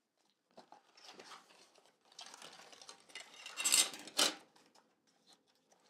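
Clear plastic packaging crinkling and rustling as a screen-protector kit is unpacked by hand, with a few light taps; the loudest crinkles come about three and a half to four seconds in.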